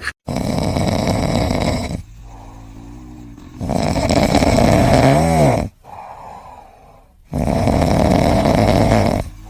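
A pet snoring loudly: three long snores of about two seconds each, with quieter breaths between them.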